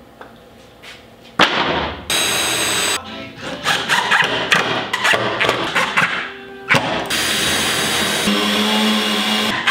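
Cordless drill running into a plywood workpiece in several short runs, starting about a second and a half in, with a longer steady run near the end.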